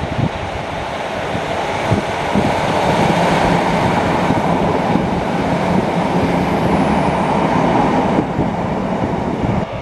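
A diesel train running past close by, its steady rumble growing louder over the first few seconds and then holding.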